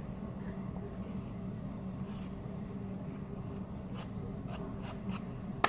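Card stock being handled over a plastic dish: a faint rustle as it is tilted, then a few light taps near the end as excess clear embossing powder is knocked off. A steady low hum runs underneath.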